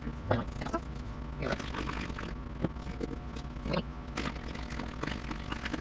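Lidded plastic food containers of raw eggs handled and shaken on a kitchen counter to scramble the eggs: scattered irregular knocks and rustles of plastic.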